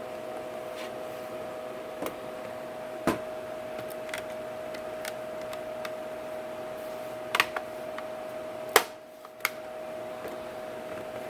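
Hard plastic clicks and snaps as a laptop's bottom cover is pressed back into place, a handful of scattered sharp clicks with the loudest about nine seconds in, over a steady faint hum.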